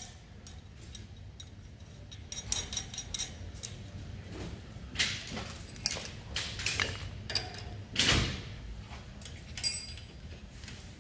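Steel front-suspension parts being handled: irregular clicks, clinks and knocks as a tie rod end is fitted to the steering arm of a spindle, with one sharp ringing metal clink near the end.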